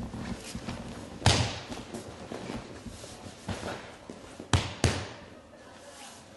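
Thuds of bodies and hands hitting a gym mat as aikido partners are thrown and pinned: a loud thud about a second in, a softer one later, then two sharp thuds in quick succession.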